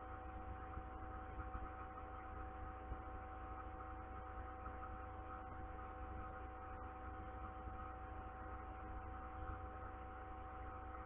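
Faint, steady electrical hum made of several held tones over a low rumble, unchanging throughout.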